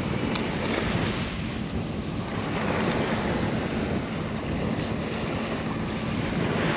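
Surf washing steadily onto a beach, with wind buffeting the microphone. A couple of faint clicks sound over it.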